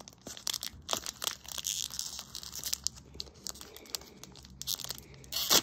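Foil wrapper of a Pokémon TCG Fusion Strike booster pack crinkling in a run of small crackles as fingers pick and pull at it. A louder rip comes near the end as the pack tears open.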